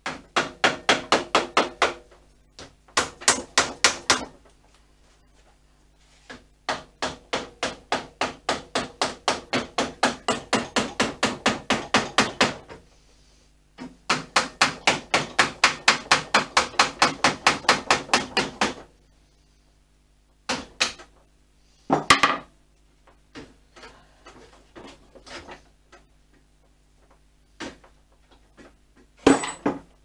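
Rapid hammer blows, about four a second, in several runs lasting from one to six seconds, each blow with a short ring. Near the end come a few scattered knocks and clatters.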